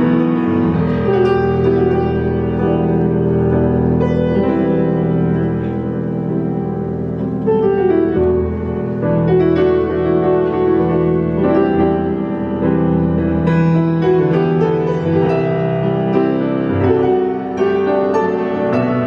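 Grand piano played solo in a free improvisation: full sustained chords with new notes struck over them continuously.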